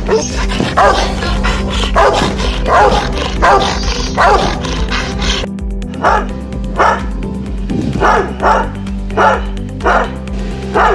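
A Rottweiler barking repeatedly, then, about halfway through, a Doberman barking in short, evenly spaced barks, over background music.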